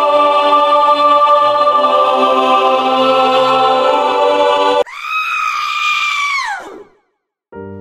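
Background music of sustained, organ-like held chords that cuts off abruptly about five seconds in, giving way to a high-pitched scream held level for a second or so, then falling and fading away.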